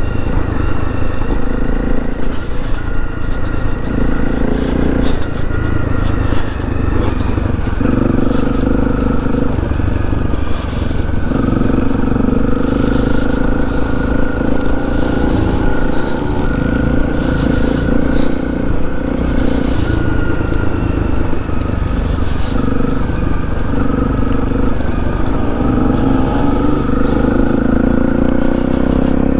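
Honda CRF250 single-cylinder motorcycle engine running under way, its note rising and falling every few seconds with the throttle, over a steady low rumble.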